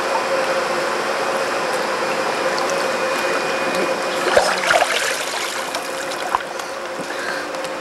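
Water splashing and streaming off a small wet dog as it is lifted out of a pool about four seconds in, over a steady mechanical hum. There is a single sharp click a little later.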